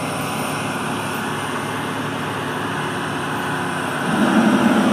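Heavy trucks hauling oversize loads passing by at road speed: steady engine and tyre noise. About four seconds in it gets louder, with a low, steady engine drone.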